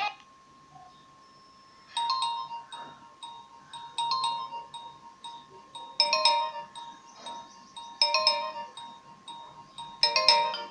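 Nokia 2600 mobile phone ringtone. After about two seconds of near silence, a short chiming phrase of electronic tones starts and repeats about every two seconds.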